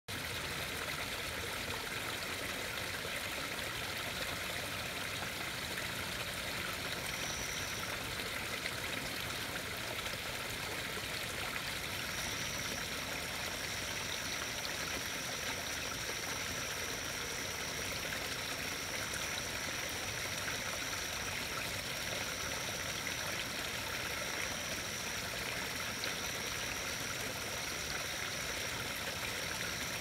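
Backyard pond waterfall: water spilling and trickling steadily into the pond. A thin, steady high-pitched tone comes in briefly around seven seconds and again from about twelve seconds on.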